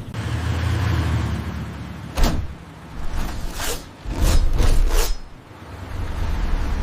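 Cinematic sound effects for robot action: a low rumble, a sharp hit about two seconds in, then a quick run of whooshes in the middle.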